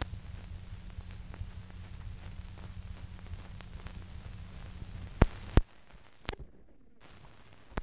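Old film soundtrack noise: a steady low hum with faint crackle. About five seconds in, two sharp clicks come close together and the hum drops away, followed by another click and one more near the end.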